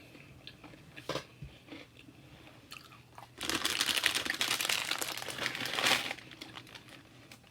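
Dense crunching and crinkling from Hot Cheetos snack food, close to the microphone. It starts about halfway in, lasts nearly three seconds and stops suddenly. Before it there is only a single light click.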